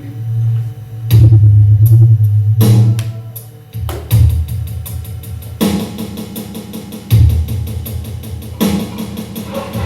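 Music with a drum kit and a deep bass. A loud low note sets in about a second in, then heavy hits come about every second and a half under a fast, steady cymbal pattern.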